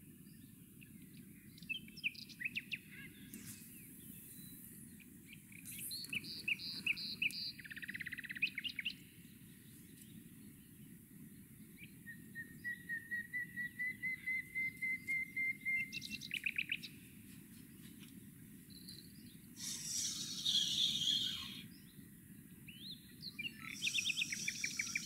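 Songbirds singing in short trills and phrases, including a fast series of notes rising slightly in pitch for about four seconds midway, over a steady low background rumble. A short rushing hiss comes about twenty seconds in.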